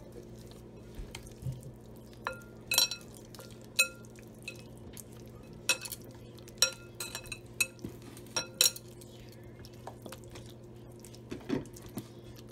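Irregular sharp clinks, a dozen or so, from a glass mixing bowl as a hand works marinade into chicken drumsticks, with the wrist's bangles knocking against the glass. A low steady hum runs underneath.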